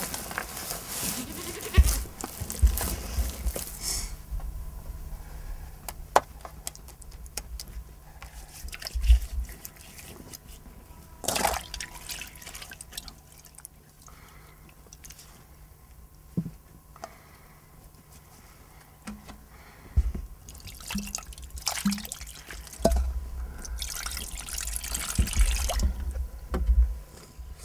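Bread dough being kneaded by hand in an aluminium basin for the first few seconds, then water splashing and dripping off wet hands into a metal bowl, with a louder stretch of water near the end.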